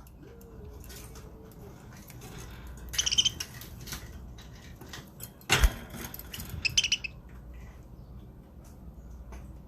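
Budgerigars chirping in short bursts, about three seconds in and again near seven seconds, with scattered light clicks and taps. There is one sharp knock, the loudest sound, about five and a half seconds in.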